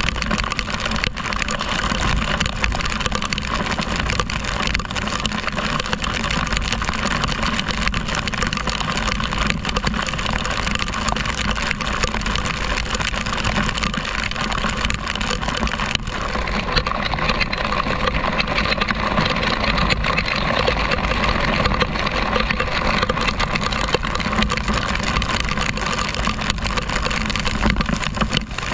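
Motor scooter riding at road speed in heavy rain: steady wind rush on the microphone and tyre hiss on the wet road, with the engine's drone underneath.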